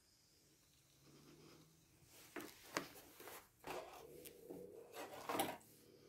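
Handling of an opened MRE food pouch and utensil: irregular rubbing and scraping with a few sharp clicks, the loudest near the end.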